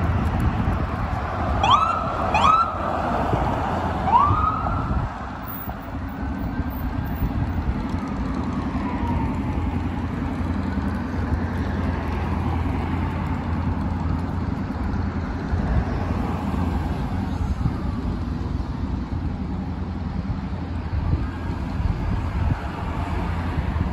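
Fire department emergency vehicle's electronic siren giving several short rising whoops, then a slower rising-and-falling wail that fades away, over steady city traffic noise.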